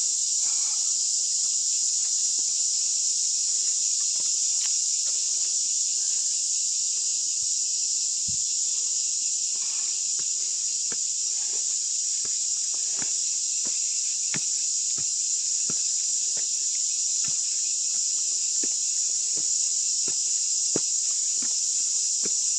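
A loud, steady, high-pitched insect chorus droning without a break, with scattered faint clicks and ticks over it.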